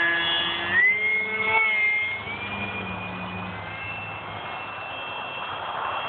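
A micro F-22 RC plane's small electric motor and propeller whine at full throttle. The pitch steps up about a second in and again near two seconds, then thins to a faint high whine as the plane flies away. Wind rushes on the microphone throughout.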